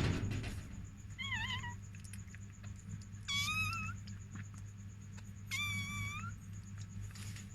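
Newborn chihuahua puppy crying with high, thin mewing squeals, three times: a short wavering one about a second in, then two longer ones. A brief noisy burst comes right at the start, over a steady low hum.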